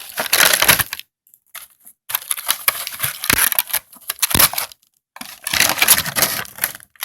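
Plastic crinkling and rustling as a toy figure's plastic packaging and parts are handled, in three spells with short pauses between.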